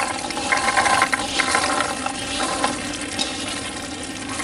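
Fresh borlotti beans poured from a wooden bowl into a terracotta pot of vegetables, tumbling and rattling in a dense rush. The rush eases after about two and a half seconds, leaving a steadier, quieter hiss.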